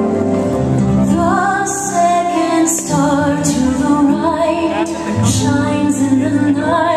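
Orchestral music with a woman singing a slow melody, the soundtrack of the fireworks show.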